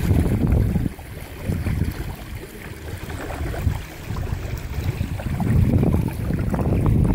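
Gusty wind buffeting the microphone, loud at first, easing after about a second and building again near the end, over small choppy waves lapping.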